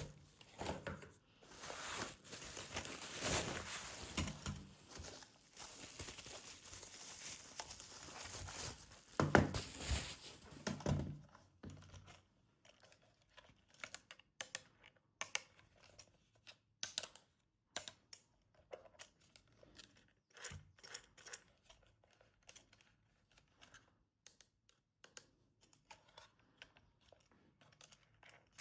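Packaging being torn open and crinkled, a dense rustling for roughly the first half. After that come scattered small clicks and light rustles of handling.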